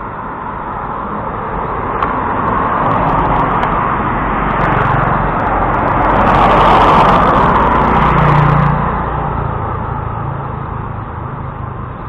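A motorcycle passing close by on the road: its engine grows louder, peaks past the middle, then fades, over steady road noise.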